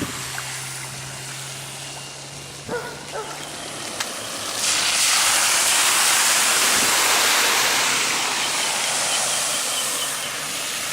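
A low steady hum for the first few seconds, then a loud rushing hiss of floodwater starts suddenly about four and a half seconds in and slowly fades over the following six seconds.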